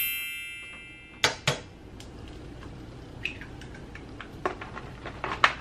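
A frying pan clanks down on a gas stove and rings briefly. About a second in come two sharp cracks as an egg is cracked, followed by a faint steady hiss with a few small clicks as the egg goes into the oiled pan.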